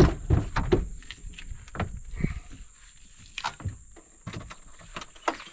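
A metal-clad camping fridge on a pull-out slide being unlatched and drawn out: a loud knock at the start, then a run of clicks and knocks from the slide and its latch.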